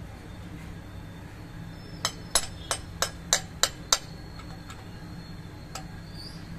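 Seven sharp metallic clicks about a third of a second apart, from a hand wrench being worked on a fitting under a car's engine, followed by a few faint ticks, over a steady low hum.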